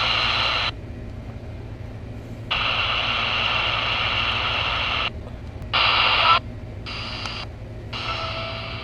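Retekess V111 shortwave radio scanning the shortwave band: static hiss from its speaker that cuts out and back in several times, in blocks of a second or two and then shorter bursts, as the scan steps between frequencies.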